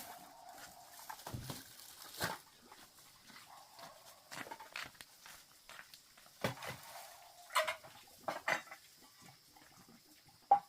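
Scattered knocks and clatter mixed with animal sounds, with a faint held call twice and one sharp knock just before the end.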